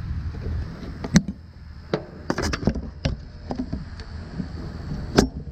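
A string of sharp metallic clicks and small handling sounds as needle-nose pliers pull the wire connectors off the terminals of a failed condenser run capacitor. The loudest clicks come about a second in and near the end, over a low steady hum.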